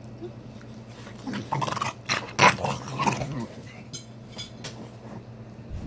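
Dogs vocalizing while play-fighting: a burst of growly, noisy calls from about a second and a half in, lasting about two seconds.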